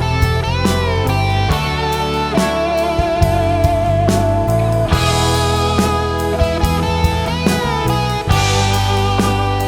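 Instrumental band music: a guitar plays a lead line with bent and wavering held notes over bass and regular drum hits, with no singing.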